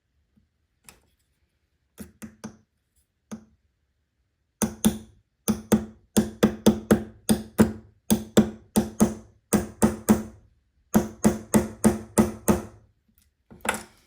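Small hammer tapping a tool to drive a friction pin into a watch bracelet: a few light taps, then fast runs of sharp taps about three a second, each with a short ringing tone, with brief pauses between runs.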